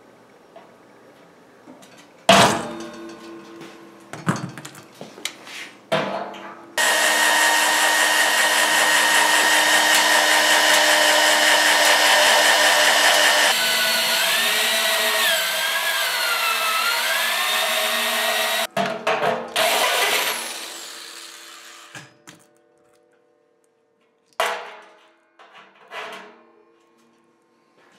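Electric drill boring through a stainless steel kettle wall, running steadily for about twelve seconds, its pitch wavering in the second half as the bit works through the steel. Short knocks and clicks of handling the tools and kettle come before and after.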